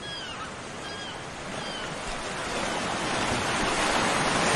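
Ocean surf washing onto a sandy beach: a steady rush of breaking waves that grows louder toward the end.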